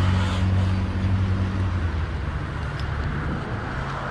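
A vehicle engine running with a steady low hum that fades away about two seconds in, over the noise of road traffic.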